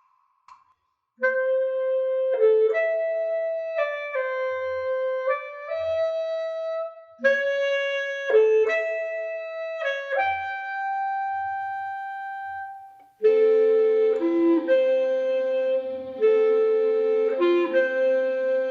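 Slow melody of held, clarinet-like woodwind notes, starting about a second in, each note sustained and changing pitch every second or so. About two-thirds of the way through, lower notes join in, turning it into sustained chords.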